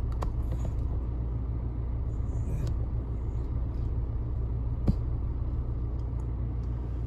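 Steady low rumble of a car's engine and tyres heard from inside the cabin. It is marked by a few light clicks and one sharp tap about five seconds in, from the phone mount being adjusted.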